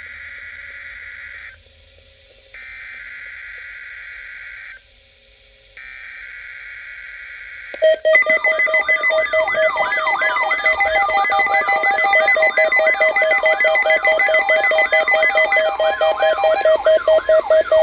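NOAA Weather Radio test alert: three digital SAME header bursts of about two seconds each, then, about eight seconds in, the loud, steady warning alarm tone begins. A warbling, rapidly pulsing alarm plays along with it, and both cut off near the end.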